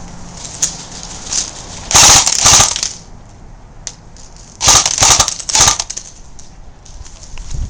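Airsoft gun firing close by: two loud strings of rapid, sharp shots, the first about two seconds in and the second about five seconds in.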